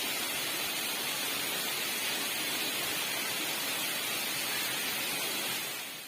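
Waterfall rushing in a steady, unbroken wash of water noise.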